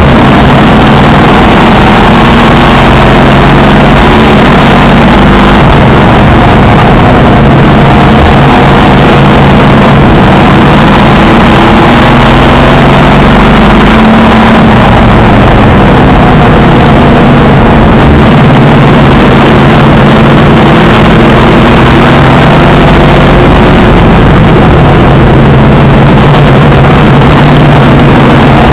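Race car engine running hard lap after lap, heard from inside the car, its pitch rising and falling with the throttle through the turns and straights. Very loud, with the recording near full scale.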